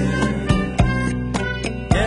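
Background music: a song with sustained instrument notes and drum hits.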